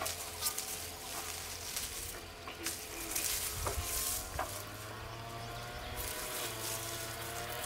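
Leaves and twigs of a fruit tree rustling and crackling as branches are pulled down and small fruit is picked by hand, with scattered small snaps and clicks, busiest in the middle.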